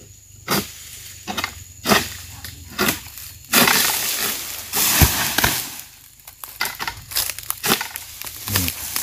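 Footsteps crunching through dry fallen oil palm fronds and leaf litter, a sharp crackle with each step. In the middle comes a longer stretch of dense crackling and crunching, with one heavy thump about five seconds in.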